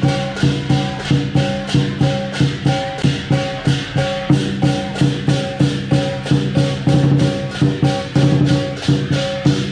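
Lion dance percussion ensemble playing: a Chinese lion drum beating under cymbals clashing in a rapid, steady rhythm, several times a second.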